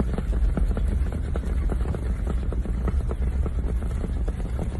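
Low rumble of a car moving slowly, with wind on the microphone, and a constant scatter of short thuds and clicks from horses' hooves on sand close alongside.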